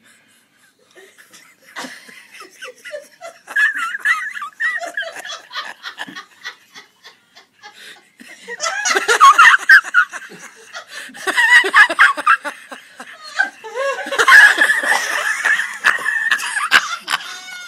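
People laughing: scattered chuckles at first, then loud bursts of laughter about halfway through and again near the end.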